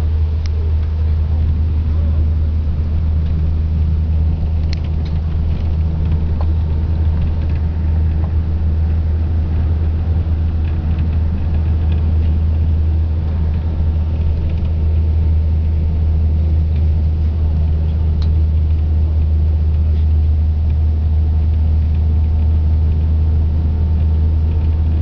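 Steady low drone of a coach travelling at highway speed, heard from inside the passenger cabin: engine and road rumble with no change in pace. A couple of faint clicks sound over it.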